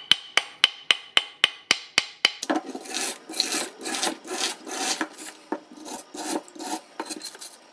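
Steel wire brush scrubbing loosened rust off a corroded iron horseshoe: quick scraping strokes, about four a second, for the first couple of seconds, then slower, splashing strokes, about three a second, as the horseshoe is scrubbed under the water.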